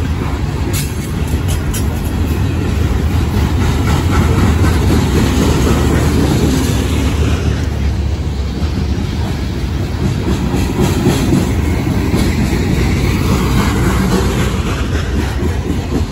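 Freight train of open-top hopper cars rolling past close by: a loud, steady rumble of steel wheels on rail. Near the end, the rhythmic clickety-clack of wheels crossing rail joints comes through.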